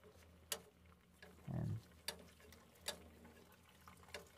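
Sugary Sprite-and-oyster-sauce braising liquid popping in the pan around a whole chicken: a few faint, sharp pops spaced a second or so apart, over a low steady hum.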